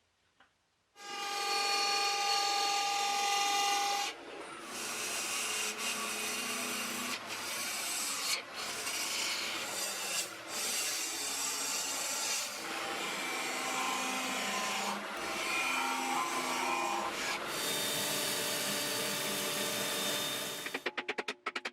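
Wood being cut and scraped with hand tools on a woodturning lathe, in a series of short clips that change abruptly. The first few seconds carry a steady whine along with the scraping, and a quick run of clicks comes near the end.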